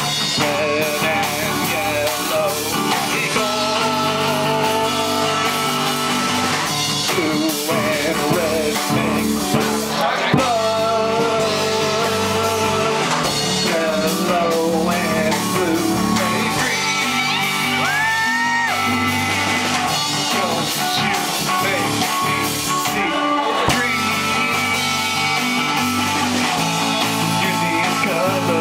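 Rock band playing live: drum kit, keyboard and guitar, with a voice singing over the band.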